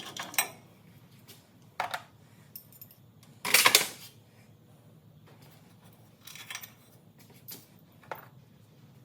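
Hand tools and metal parts clinking and knocking in scattered, irregular strikes, with one louder rattling clatter about half a second long some three and a half seconds in.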